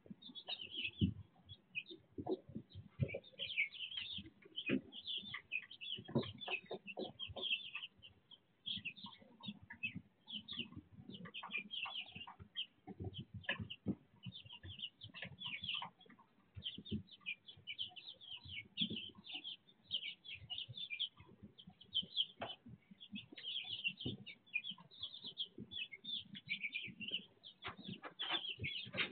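A flock of young chicks peeping constantly: many short, high chirps overlapping one another, with scattered soft taps and scratches among them.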